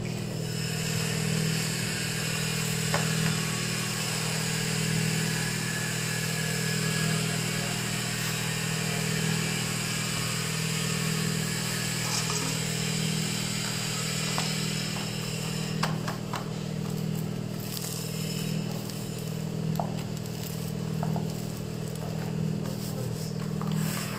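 A steady low mechanical hum with a hiss above it. From about two-thirds of the way in come light scrapes and crinkles of a spatula and parchment paper against a metal baking tray.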